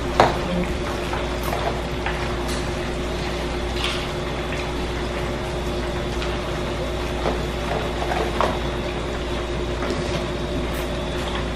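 A large spoon stirring potato salad in a plastic bowl, with a few faint scrapes and taps scattered through, over a steady kitchen hum.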